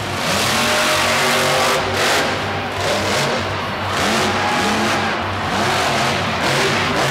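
Monster truck's supercharged V8 revving hard, its pitch climbing and dropping again and again as the throttle is worked.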